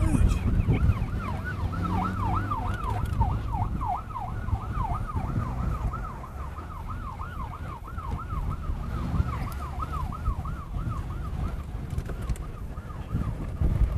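An emergency vehicle's siren on a fast yelp, rising and falling about three times a second and fading near the end, over a low wind rumble on the microphone.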